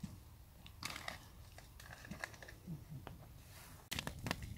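Faint rustling and crinkling with scattered small clicks as gear is handled at a wood campfire. About four seconds in come a few sharper crackles and snaps from the burning wood.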